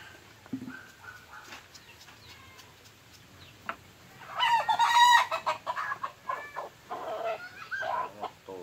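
A rooster crowing about four seconds in, the loudest sound, followed by several shorter, broken calls.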